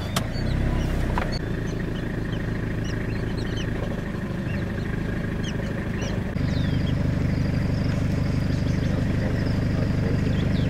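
A vehicle engine running steadily, getting louder about six seconds in, with birds chirping over it.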